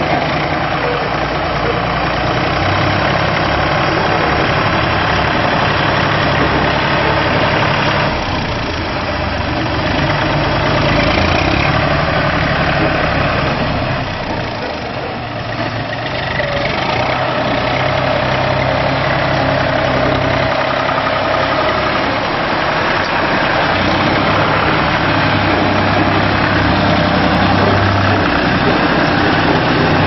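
Tractor engine running steadily while powering a tractor-driven combine harvester, with a dense, continuous mechanical din from the harvester's machinery. It briefly gets a little quieter about halfway through, then picks back up.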